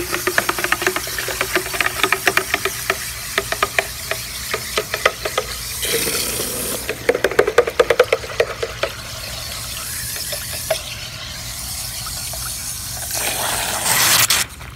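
A stick stirring water in a plastic bucket to dissolve powdered medication, with rapid clicks and knocks against the bucket over the sloshing. The stirring dies away after about nine seconds, and a short louder rustle comes near the end.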